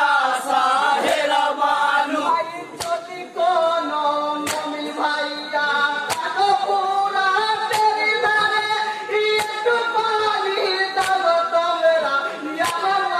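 A group of voices singing a Bengali marsiya (jari gaan) unaccompanied, with long held and wavering notes. From a few seconds in, a sharp hand clap marks the beat about every second and a half.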